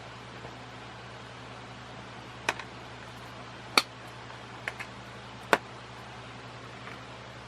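Several sharp clicks and taps from ceiling-fan parts and hardware being handled during assembly, the loudest about two and a half, four and five and a half seconds in, over a steady low hum.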